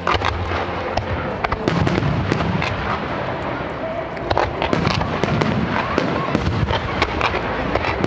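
Fireworks finale barrage at very close range: a rapid, unbroken string of sharp bangs from shells launching and bursting, over a constant rumble.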